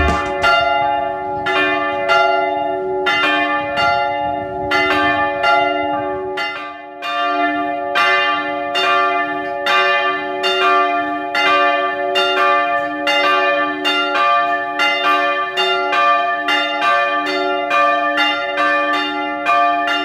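Two church bells swinging on automatic electric swing drives, their clappers striking over and over, about two strikes a second. Each strike rings on into the next, so the bell tones overlap and hum steadily, with a brief lull about seven seconds in.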